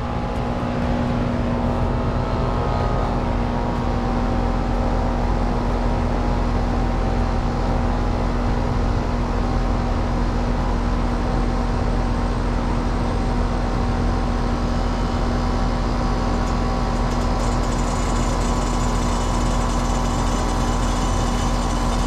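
Heat pump outdoor unit running in heat mode: a steady compressor hum with a strong low tone and a mechanical rumble. The bad thermostatic expansion valve is starving the outdoor coil, so suction pressure is falling.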